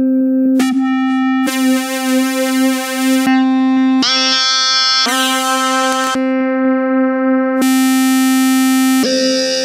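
Roland Fantom G8 synthesizer presets sounded one after another, each holding the same single note, with the tone switching abruptly to a new patch about every one to two seconds: piano-like, bright synth and buzzy timbres in turn.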